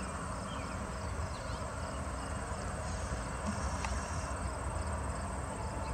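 Insects chirping in an even repeating pulse, about three a second, with a few short bird chirps, over a steady low rumble.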